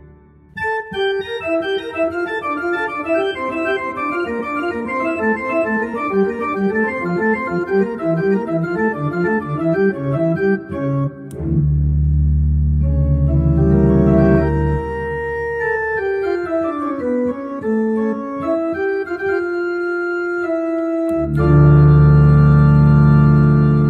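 Organ music: a fast run of quick notes for about ten seconds, then long held chords over a deep bass, a falling line of notes, and a loud final held chord that cuts off near the end.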